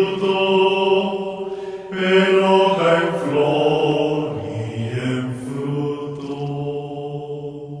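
Gregorian chant sung by low voices: slow, long-held notes that step gently up and down in pitch, gradually fading near the end.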